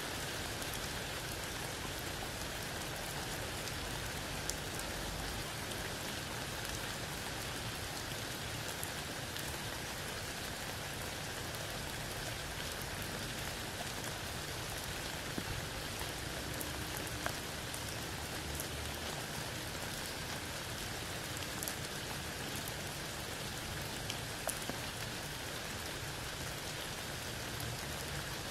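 Steady rain falling under a tree: an even hiss of rain with scattered sharper ticks of single drops.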